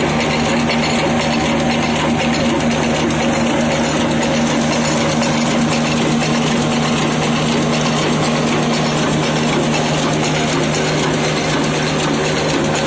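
Old Ruston Hornsby-type stationary diesel engine running steadily at an even speed, a continuous rapid mechanical beat with a steady hum.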